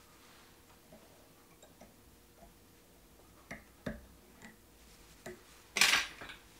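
Small clicks and taps of fly-tying tools, a whip-finish tool and thread bobbin, being worked around the head of a fly in the vise, with one louder brief clatter near the end.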